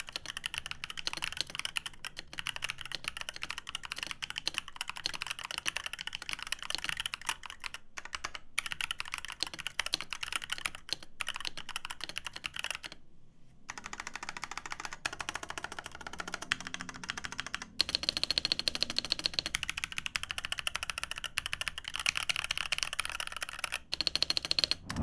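Fast typing on the ASUS ROG Falchion NX, a 65% wireless mechanical keyboard with ROG NX Red linear switches: a dense, rapid clatter of keystrokes with brief pauses near 13 s and 24 s.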